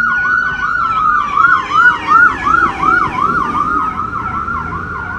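Emergency vehicle sirens passing: a fast yelp sweeping up and down about three times a second over a slower rising and falling wail. It is loudest about two seconds in and fades toward the end.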